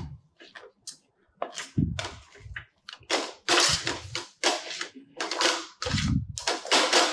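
A metal slotted spoon scraping and knocking against a stainless steel kadhai as flour is stirred into a thick jaggery mixture: a quick series of harsh scrapes, about two a second, with a few low knocks of the spoon on the pan.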